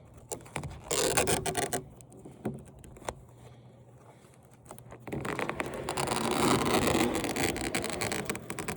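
A part of a flat-screen TV being pulled loose from its sticky adhesive: a short scraping rub about a second in, then a longer, louder stretch of scraping and rasping from about five seconds in.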